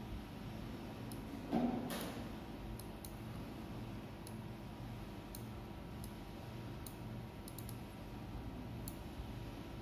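Computer mouse buttons clicking now and then at an irregular pace while drawing with the mouse, with one brief louder bump about one and a half seconds in.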